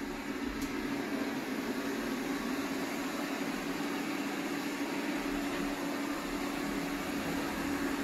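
eufy RoboVac 11S robot vacuum running across a hard floor: a steady whir from its suction motor and brushes, with one constant low hum under it.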